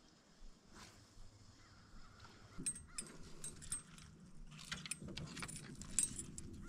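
Light clicks, knocks and small metallic rattles of gear being handled in a boat, sparse at first and busier after about two and a half seconds, over a low steady hum.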